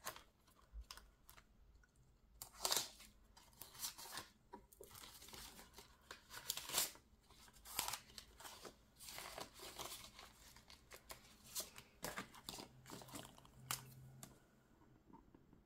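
Quiet paper rustling and crinkling in short, irregular bursts, from paper sheets or banknotes being handled at a table.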